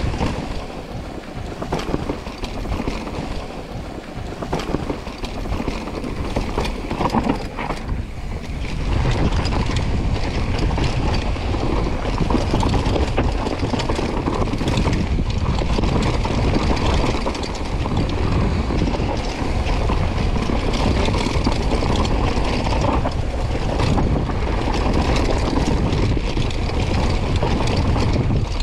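Mountain bike descending a rough trail: tyres running over dirt and stones, with the bike rattling and many small knocks. Wind buffets the microphone throughout, its low rumble growing louder about nine seconds in.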